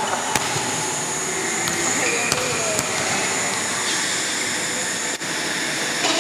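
Steady rushing background noise of a large sports hall, with a few light sharp knocks and faint distant voices.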